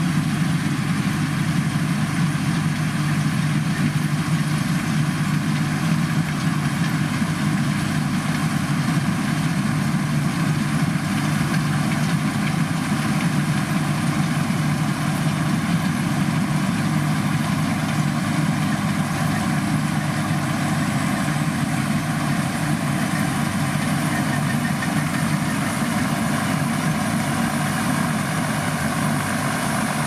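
New 200 Turbo Srikosak tracked combine harvester running steadily while cutting rice, its engine giving a strong, even low hum.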